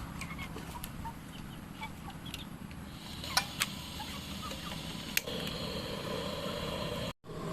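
Scattered short bird calls over a steady low background hum, with two sharp clicks a little past three seconds in and another about five seconds in.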